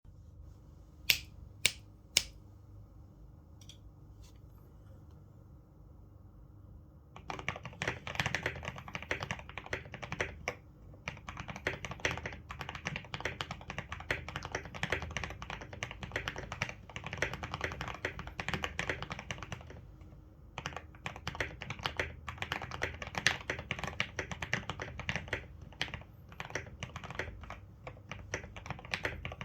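KBD75 v3.1 mechanical keyboard being typed on fast, a dense run of key clacks with two short pauses. It opens with three sharp, louder clicks in the first couple of seconds, then a few seconds of quiet before the typing begins.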